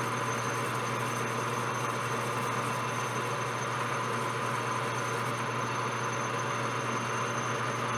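Metal lathe running steadily while it takes a light finishing cut on a brass bushing, skimming a couple of thousandths off the outside diameter.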